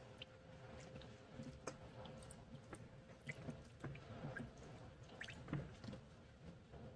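Faint small clicks, taps and drips of lemon juice being poured and measured in a measuring cup, scattered irregularly.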